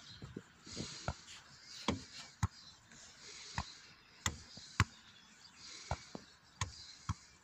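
Football being played in a teqball rally: about ten sharp thuds at uneven intervals, roughly one every half second to second, as the ball is kicked, headed and bounces on the curved teqball table.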